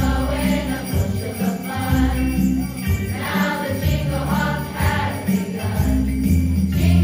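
Youth choir singing a Christmas song over an accompaniment of sustained bass notes and jingling sleigh bells.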